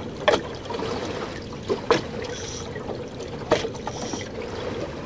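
Water slapping and trickling against a small boat's hull as it slow-trolls on a calm sea, with a sharp slap every second and a half or so over a steady hum.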